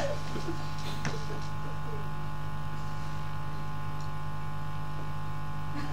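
Steady electrical hum and buzz, with a light click about a second in and a few faint murmured voice sounds.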